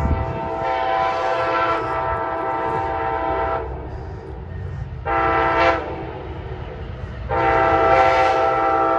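Amtrak ALC-42 Charger locomotive's multi-chime air horn sounding a long blast, then a short blast about five seconds in, then another long blast from about seven seconds in, over a low rumble from the train.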